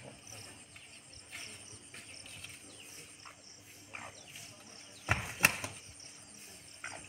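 Dawn village ambience: scattered short bird chirps that fall in pitch, over a steady high insect drone. A brief loud noise a little past the halfway point stands out above everything else.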